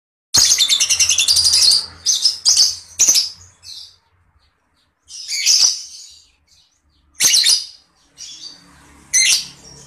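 Lovebird calling shrilly: a rapid chattering trill of about a second and a half at the start, then single short piercing chirps every second or two.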